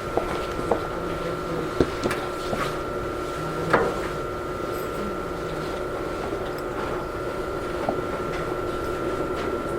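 Inside a Sotetsu 8000 series train car standing at a station: a steady hum from the onboard electrical equipment and ventilation, with a constant high whine. A few light clicks come in the first four seconds.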